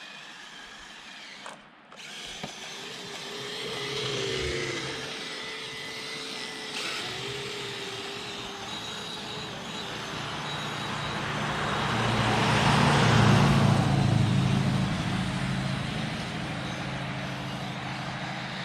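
Kyosho Blizzard 2.0 RC tracked snow vehicle driving through snow on its twin brushless motors: an electric motor whine that wavers in pitch over the hiss of the tracks. It starts about two seconds in, grows loudest around twelve to fourteen seconds in, then eases off.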